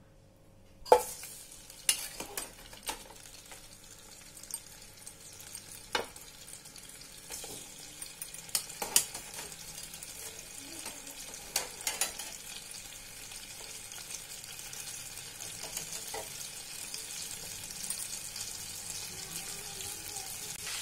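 Boiled chicken pieces sizzling as they fry in hot oil in a pot. The sizzle starts about a second in and grows steadily louder toward the end, with a dozen or so sharp knocks against the pot as the pieces go in.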